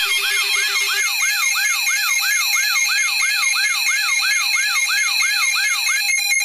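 Electronic emergency-alert siren: a rapid wail sweeping up and down about three times a second, layered over steady high electronic tones. A lower pulsing tone drops out about a second in. Near the end the wail stops and the high tones carry on in short pulses.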